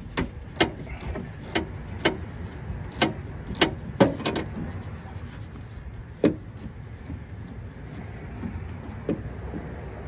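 Sharp metallic clicks and knocks from a 10 mm socket driver working the bolts that hold the exterior door handle inside a Toyota Tacoma's steel door. They come about twice a second at first, then irregularly, and thin out to single knocks after about four seconds, over a steady low rumble.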